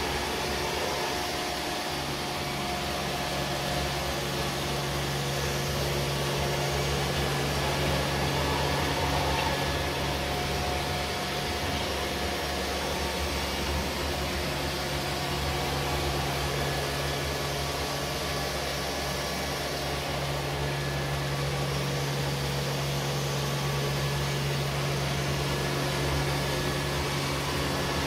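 Neato D7 and Samsung POWERbot VR9300 robot vacuums running at the same time: a steady whir of suction fans over a low, even hum.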